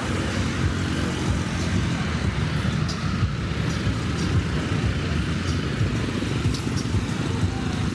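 Road traffic: motor vehicle engines running past in a steady low rumble.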